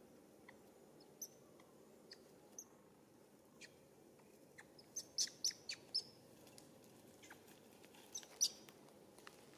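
Short, high bird chirps, scattered at first, then a quick run of about five around the middle and two more near the end, over a faint low background hiss.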